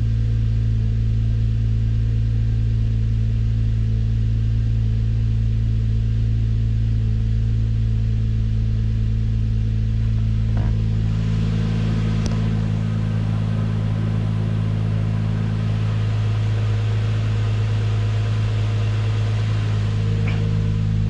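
Infiniti G35's 3.5-litre V6 idling steadily, with a slight putter that the owner takes for a misfire from worn spark plugs. A couple of faint clicks come about halfway through.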